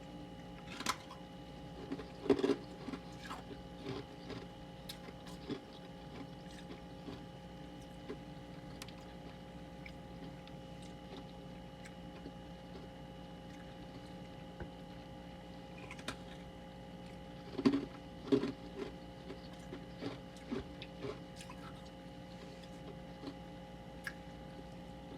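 Hard freezer frost being bitten and chewed: a few loud crunches in two clusters, near the start and about two-thirds of the way through, with smaller crackles between, over a steady hum.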